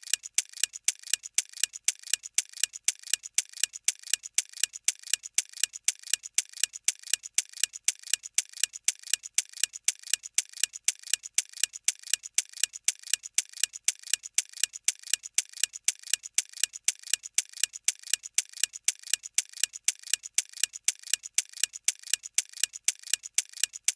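Clock ticking at an even pace, about two ticks a second: a ticking timer sound effect marking the thinking time for a quiz question.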